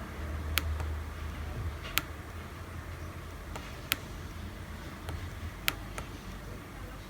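Separate sharp clicks of small push-buttons being pressed, about four loud ones a second or two apart with a few fainter ones between, over a steady low hum.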